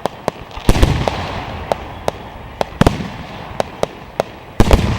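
Aerial fireworks bursting in an irregular string of sharp bangs, about a dozen in five seconds, the loudest about a second in and again near the end, each big one trailing off in a hiss.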